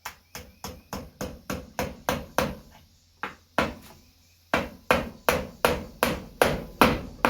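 Hammer driving small nails into a boot to fasten loose rubber pieces back on: quick, even strikes about three a second, in two runs with a short pause between. The later strikes are the loudest.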